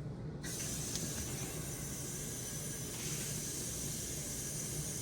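A steady background hiss that starts suddenly about half a second in and then holds even.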